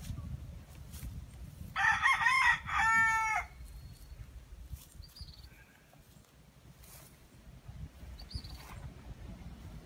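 A rooster crows once, about two seconds in: a loud call of about a second and a half that wavers at first and then holds a steady pitch.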